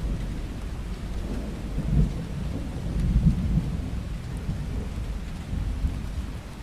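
Thunder rumbling low in a rainstorm, swelling about two seconds in and again around three seconds in, over the steady hiss of falling rain.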